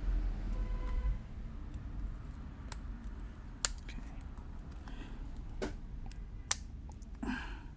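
Sharp plastic clicks, a few seconds apart, as a pry tool works around the edge of a Samsung Tab T320's back cover and its plastic clips snap loose. There are four separate clicks, the last the loudest, and a brief scrape just before the end.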